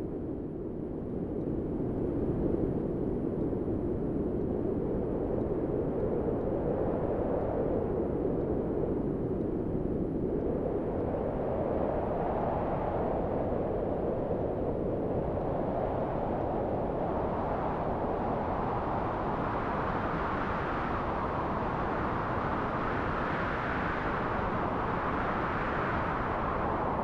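Wind blowing: a steady rushing that swells and ebbs in slow waves, its pitch rising and falling and climbing higher in the second half.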